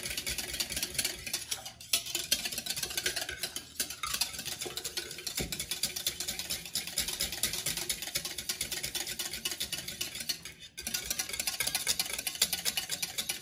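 Metal balloon whisk beating hot instant coffee, sugar and caramel in a mixing bowl: a fast, steady clatter of the wires against the bowl, stirring the mixture until it dissolves and foams. It breaks off briefly about two seconds in and again near eleven seconds.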